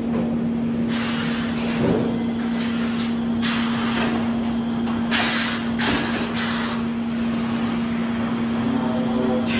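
Sawmill machinery running with a steady hum, overlaid by two longer bursts of rushing noise, about a second in and again around five seconds in, and a few sharp knocks as boards move along the roll conveyors.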